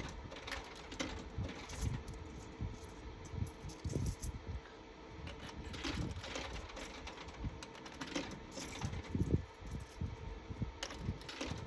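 Coins fed one after another into a drink vending machine's coin slot, with irregular small clicks and clinks as they drop through the coin mechanism, over a faint steady hum.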